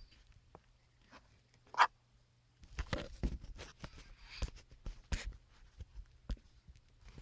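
Handling noise of a smartphone being fumbled against binoculars: scattered light knocks, scrapes and rubbing, with a sharp click about two seconds in and another about five seconds in.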